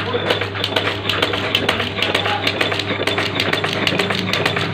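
Ceiling-fan paper cutting and folding machine running, clacking in a fast even rhythm of about six strokes a second over a steady motor hum.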